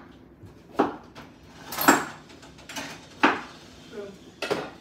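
A kitchen knife cutting through vegetables and knocking on a wooden cutting board, about four sharp chops roughly a second apart with a few lighter taps between.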